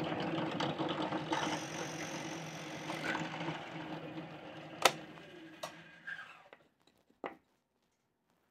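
Drill press running and boring a 10 mm hole through a laminated coloured-plywood blank, its motor humming steadily under the cutting noise. About five seconds in there is a sharp click, and the motor winds down to a stop.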